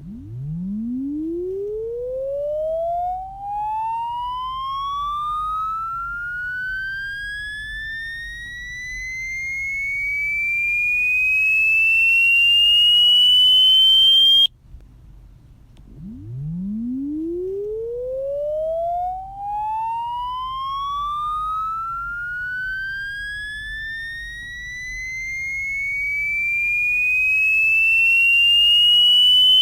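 Electronic 'mosquito sound' test tone: a pure tone sweeping steadily upward from a low hum to a high whine over about fourteen seconds, cutting off suddenly, then starting low again and climbing a second time.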